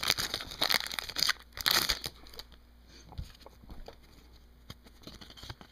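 Upper Deck hockey card pack wrapper crinkling and tearing for about two seconds, then only a few faint ticks of cards being handled.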